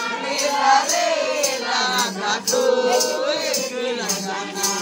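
Voices singing a folk song together, with drum and rattling percussion keeping a steady beat of about two strokes a second.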